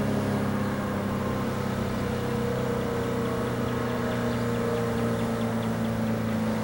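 ACA P-15 electro-mechanical siren sounding a low, nearly steady tone that sags slightly in pitch over the first couple of seconds, then holds. Its rotator is broken, so the horn stays pointed one way and the level does not swell and fade.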